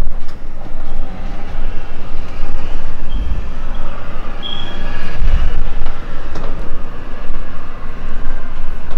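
Loud, steady low rumbling noise.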